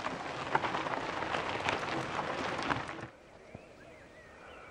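Mountain-bike tyres crunching over loose gravel and stones as riders pass close by, with many sharp clicks of grit and stones. About three seconds in the sound cuts to a much quieter background.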